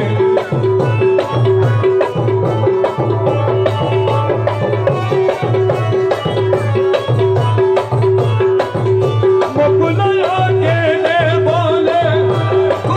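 Loud music with a fast, steady drum and tabla beat under a repeated held note; a singing voice comes in about ten seconds in.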